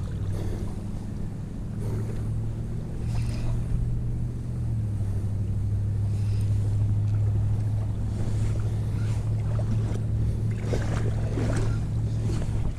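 A steady low motor hum, growing a little louder about five seconds in.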